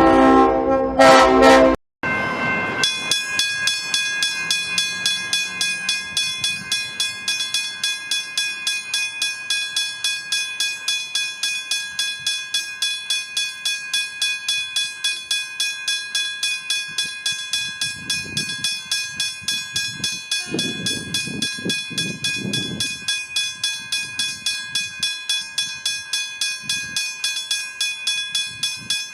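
Westinghouse hybrid level-crossing bell ringing steadily, struck evenly about three times a second with a bright, ringing tone. It is preceded by under two seconds of a loud horn-like tone that cuts off abruptly.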